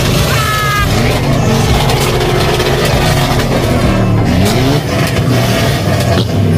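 Tuned car's exhaust as the engine is revved hard again and again while parked, rising and falling in pitch, with sharp pops from the exhaust as it throws flames.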